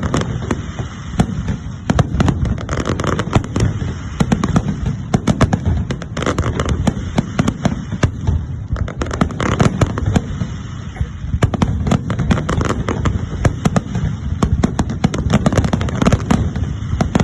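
Fireworks display: a rapid, continuous barrage of bangs and crackling pops over a steady low rumble.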